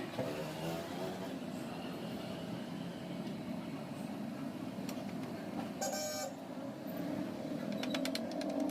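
Steady vehicle engine noise with a short horn beep about six seconds in, and a quick run of clicks near the end.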